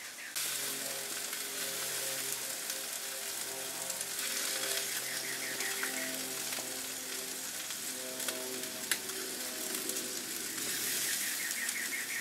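Chicken thighs, salmon and potatoes sizzling on the hot grates of a gas grill: a steady, dense crackling hiss of fat and basting sauce cooking.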